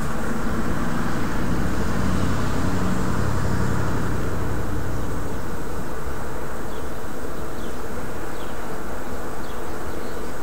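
A car driving past, its low engine hum fading over the first few seconds, over a steady rushing background noise.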